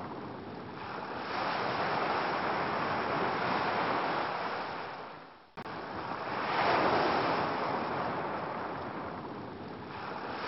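Ocean waves washing onto a beach, the surf noise swelling and fading every few seconds. About halfway through the sound dips away and cuts back in with a click.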